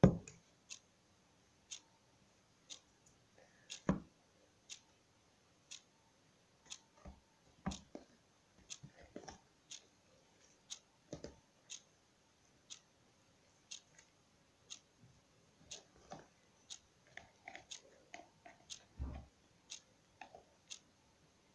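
Hands kneading shaving foam in a plastic tub: soft, irregular squishing and handling noises, with a knock right at the start. Under them runs a faint, regular tick about once a second, like a clock.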